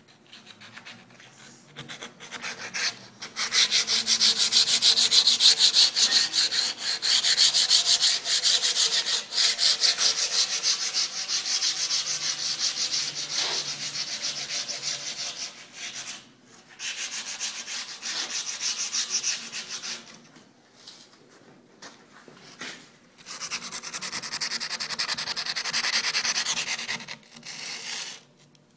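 50 grit diamond sanding strip rubbed back and forth over the rough edge of a cast concrete countertop, making a gritty scraping in quick repeated strokes. It stops briefly a few times.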